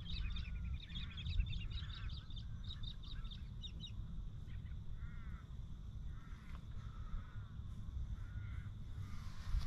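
Birds calling: a run of quick, high chirps over the first few seconds, then several separate lower, arched calls. A steady low rumble runs underneath.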